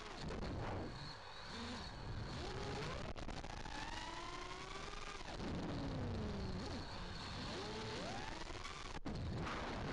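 Five-inch FPV quadcopter's motors and Dalprop Fold 5.1 folding propellers whining, the pitch rising and falling several times with the throttle, over a steady rush of prop wash and wind noise.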